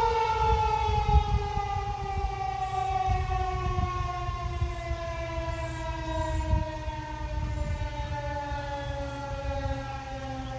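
Federal Signal 2001-130 outdoor warning siren winding down, its single tone falling steadily in pitch and slowly fading, sounding for a tornado warning. A gusty low rumble runs underneath.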